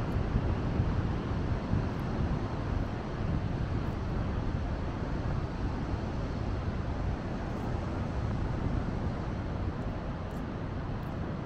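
Wind buffeting the microphone: a steady low rumbling noise with no engine note or distinct events.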